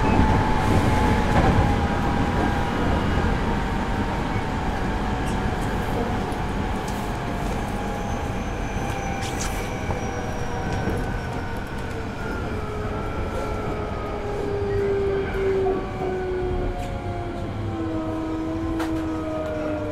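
Onboard running sound of a Hankyu 8000 series train: the Toshiba GTO VVVF inverter whine slides steadily down in pitch as the train slows, over the rumble of wheels on rail, with a few sharp clicks.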